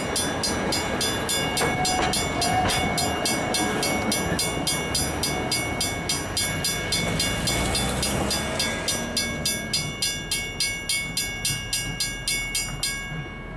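Railway level crossing warning bell ringing steadily at about three strokes a second while the end of a train rolls away over the crossing. The train's rumble fades over the first eight or nine seconds, leaving the bell on its own.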